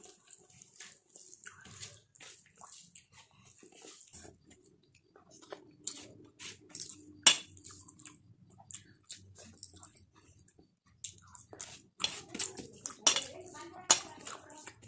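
Close-up eating sounds: wet, smacking clicks of rice and curry being mixed and picked up from a plate, and chewing, in irregular bursts that get busier near the end.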